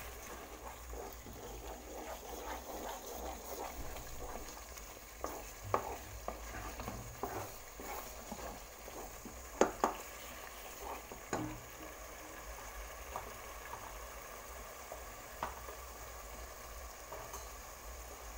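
Blended tomato-and-onion sauce sizzling and bubbling in hot oil in a pan while a spoon stirs it, knocking against the pan now and then. A pair of sharp knocks about halfway through are the loudest sounds.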